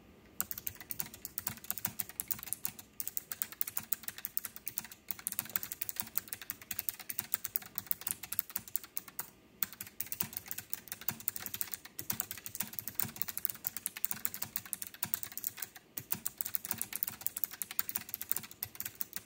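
Typing lightly on a K1 mechanical keyboard with blue switches: a rapid, steady stream of key clicks with a few brief pauses. Blue switches click by default, so the keys stay noisy even under a light touch.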